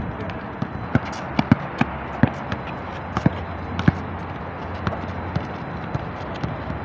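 A basketball dribbled on asphalt: a string of sharp, irregularly spaced bounces over a steady background hum.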